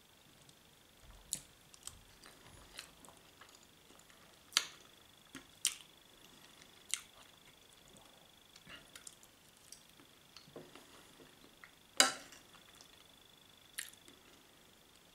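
A person eating a meal quietly with cutlery: sharp clicks and taps every second or two from utensils and chewing, the loudest about twelve seconds in. A faint steady high-pitched whine runs under it and stops near the end.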